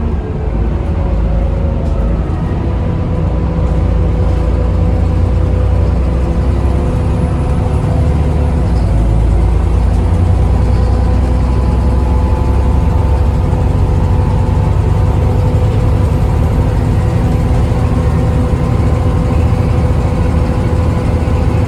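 Volvo B7TL double-decker bus on the move, heard on board: the engine's heavy low rumble, with the steady whine of its loud cooling fans, which the uploader calls a 'hoover', over it. The level rises a little about four seconds in.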